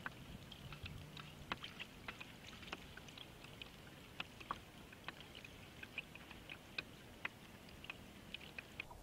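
Faint, irregular small ticks and splashes of water lapping against a boat's hull, a few each second.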